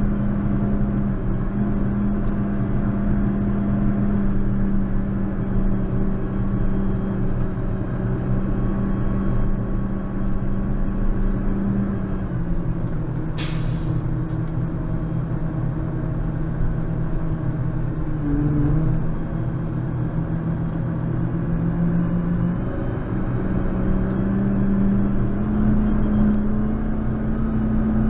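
JCB Fastrac 4220 tractor's diesel engine running steadily while pushing a snow plough; its pitch drops a little about twelve seconds in and climbs back near the end. A brief sharp hiss comes about halfway through.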